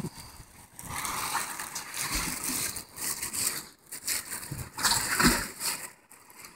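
Sea waves washing against a rocky shore and surging into a hole in the rock: a hiss of surf that swells and falls back in waves, with a few low thumps.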